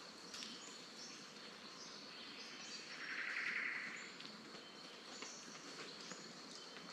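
Rainforest ambience: scattered short bird calls over a steady high-pitched insect drone, with a louder buzzy trill lasting about a second, three seconds in. A few soft footsteps are heard on the track.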